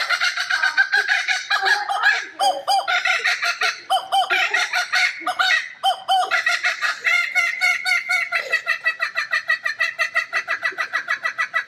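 Laughing kookaburra calling loudly. The call starts as an uneven run of chuckling notes and after a few seconds settles into a fast, even chain of about five notes a second.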